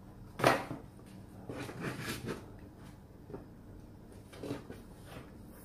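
Handling noise from a laptop being touched and moved on a table: a louder rub about half a second in, then scattered lighter rubs and taps.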